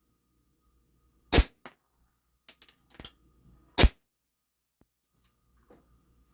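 Steyr L9-A2 CO2 blowback airsoft pistol firing 0.25 g BBs: two sharp shots about two and a half seconds apart, with a few lighter clicks between them.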